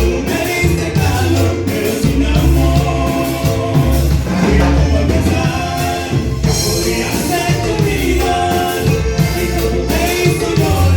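A song with a sung vocal over a band with a heavy bass.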